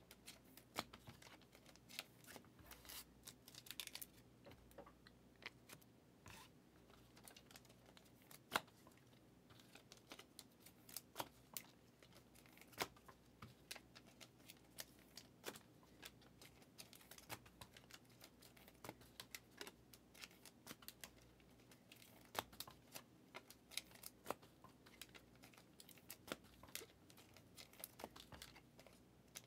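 Faint, irregular clicks and flicks of trading cards being handled, slid off one another and set down on a stack, with a brief tearing rustle about three seconds in.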